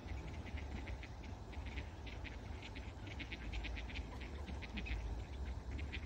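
Fine, irregular crackling ticks, like fresh snow crunching underfoot, over a low rumble of wind on the microphone.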